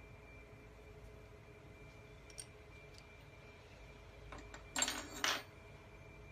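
Small steel parts and hand tools clinking against metal: two faint ticks, then a brief clatter a little over four seconds in with two louder clanks about half a second apart.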